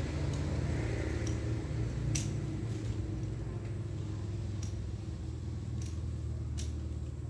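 Hand pruning shears snipping twigs, about six short sharp clicks spread out, over a steady low hum.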